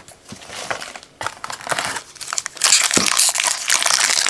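Trading-card pack wrapper crinkling as it is handled and opened, with a few scattered crackles at first, then dense, continuous crinkling from about two and a half seconds in.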